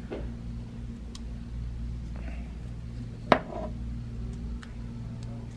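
Small precision screwdriver backing tiny screws out of a DJI HD FPV camera housing: faint light ticks and one sharp click about three seconds in, over a steady low hum.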